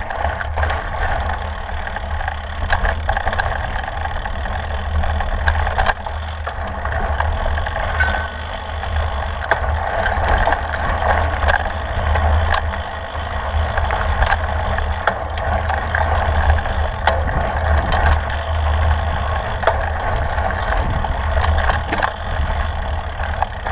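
Mountain bike rolling over rocky, gravelly singletrack, heard through a handlebar-mounted camera: the knobby tyre crunching on loose stones, with frequent small rattles and clicks from the bike, over a steady low rumble.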